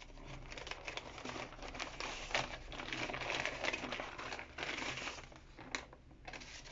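Paper envelope being opened by hand, its paper rustling and crinkling in an irregular run of crackles that is densest and loudest from about two to four seconds in.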